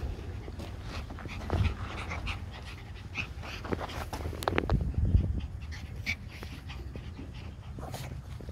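Labradoodle puppies panting and scuffling as they play, with a few short high whines and scattered knocks.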